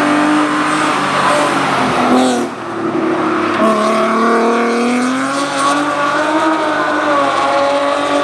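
Race car engine under hard acceleration, its note climbing and dropping through gear changes, with a brief dip about two and a half seconds in.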